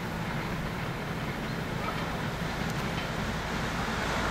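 Harz narrow-gauge steam train running away into the distance: a steady low rumble.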